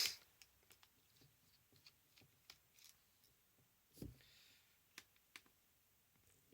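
Faint, scattered clicks and ticks of a Phillips screwdriver working small screws out of a netbook's plastic base, with a sharper click right at the start and a soft knock about four seconds in.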